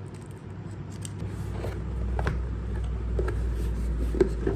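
A cardboard keyboard box being opened by hand: scattered scrapes and light knocks of cardboard, over a low steady rumble that starts about a second in.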